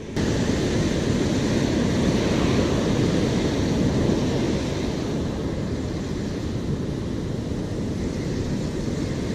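Ocean surf breaking along the shore with wind buffeting the microphone: a steady rushing noise, easing slightly about halfway.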